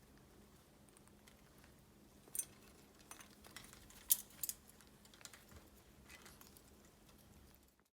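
Faint scattered clicks and taps, a few sharper ones in the middle, over a low hum; the sound cuts off to silence near the end.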